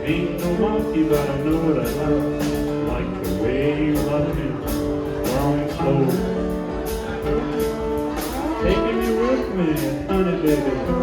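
Acoustic guitar strummed in a regular rhythm, about two to three strums a second, while a slide guitar plays notes that glide up and down over it.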